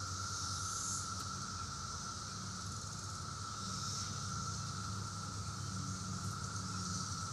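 Steady, droning chorus of 17-year periodical cicadas, holding one unbroken pitch, with a higher hiss above it that swells and fades.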